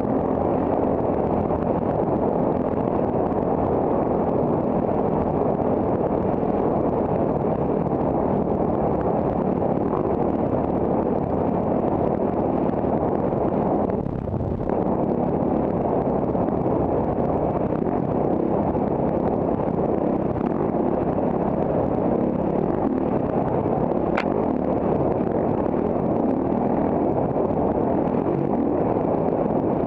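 Honda CRF450RX dirt bike's 450 cc single-cylinder four-stroke engine running steadily under throttle, heard through a bike-mounted camera. The sound eases off briefly about halfway through, and there is one sharp tick late on.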